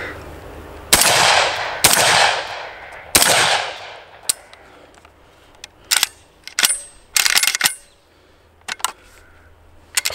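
Three shots from a Webley & Scott Web-Tac semi-automatic shotgun within about two seconds, each trailing off over about a second. Then a run of sharp metallic clicks and rattles as the gun is handled.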